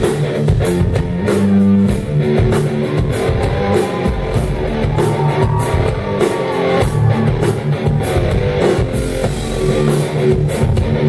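Live rock music: an electric guitar riff played by a guest guitarist, with drums keeping a steady beat underneath.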